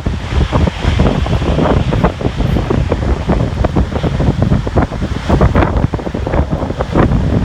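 Strong, gusty wind buffeting the microphone: a loud, continuous rush that comes in many quick, uneven blasts.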